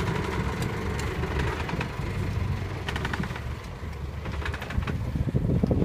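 Boat engine running with a steady low rumble, with brief patches of clicking about a second in and again about three seconds in.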